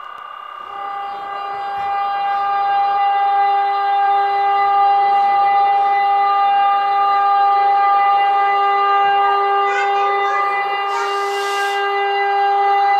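Sound system of Gauge 1 model locomotives playing a steady pitched hum, with a few light ticks and a short hiss near the end.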